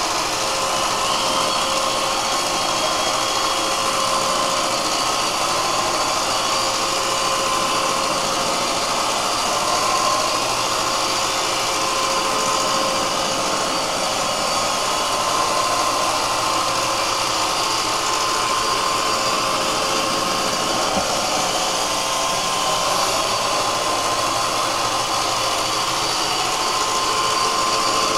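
iRobot Roomba 500-series robot vacuum running on carpet in spot-cleaning mode: its motor, brushes and suction make a steady whir with a faint even hum.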